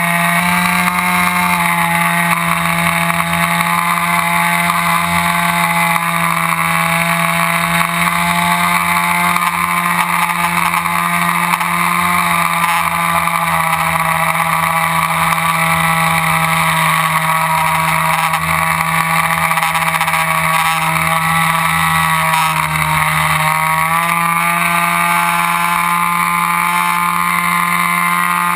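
RC airplane's motor and propeller running steadily with a constant droning pitch. The pitch sags briefly about a second in, and again for about two seconds roughly three quarters of the way through.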